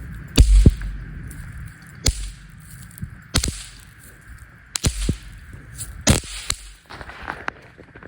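TNT Exploding Hearts consumer firework firing: about a dozen sharp shots and bursts at uneven intervals, several coming in quick pairs.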